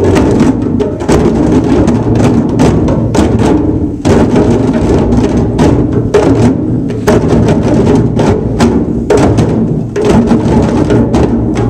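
A class ensemble of djembes and small hand drums, struck by hand all together in a fast, loud rhythm. It stops near the end.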